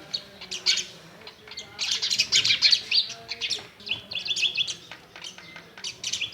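Myna bird calling in rapid high chirps, with a quick run of about five repeated notes about four seconds in.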